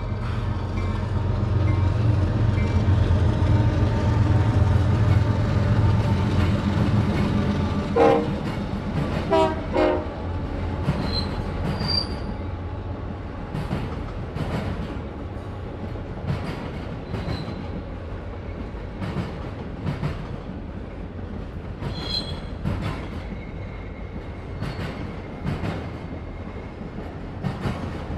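Freight train's diesel locomotives running past with a heavy low engine rumble, then a few short horn blasts about eight to ten seconds in. The autorack cars follow, rolling by with clacking wheels and brief high wheel squeals.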